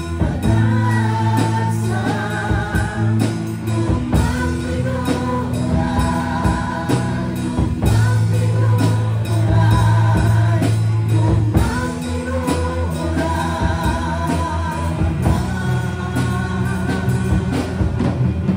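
A live worship band playing a praise song: a woman singing the melody over keyboard, electric guitar, bass guitar and a drum kit keeping a steady beat.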